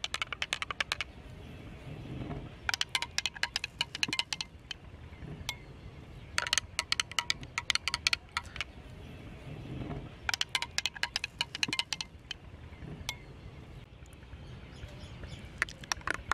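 A metal spoon stirring milkshake in drinking glasses, one glass after another, clinking rapidly against the glass. The clinks come in bursts of a second or two with short pauses between.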